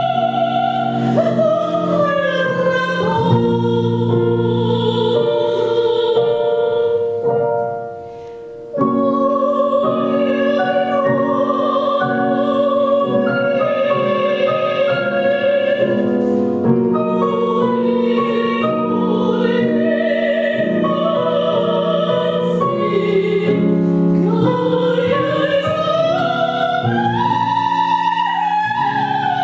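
Classical vocal music: an operatic voice holding long notes with vibrato, over piano. The music fades out briefly about eight seconds in, then comes back in.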